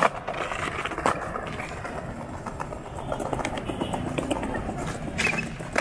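Skateboard wheels rolling on pavement, with sharp board clacks at the start, about a second in, and near the end.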